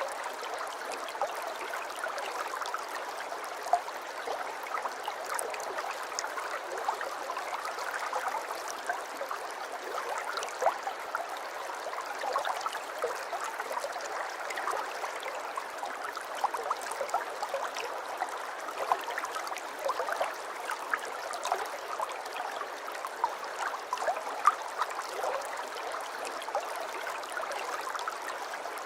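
Aquarium water trickling and bubbling steadily, a continuous splashing hiss dotted with small irregular droplet plips.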